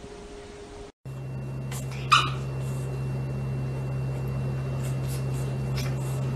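A dog gives a single short, high yelp about two seconds in, over a steady low hum.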